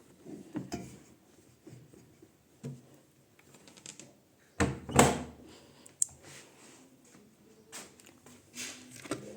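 Knocks and clatters of handling at a washing machine as it is loaded with towels, with one louder thump about five seconds in.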